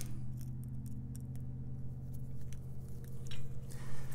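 Screwdriver loosening the brass and silver terminal screws on an old aluminum lamp socket: small scattered metal clicks and scrapes over a steady low hum.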